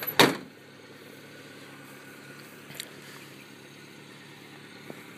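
Subaru Sambar mini truck's cab door slams shut just after the start, then the truck's rear-mounted engine idles steadily, running smoothly with no unusual noises.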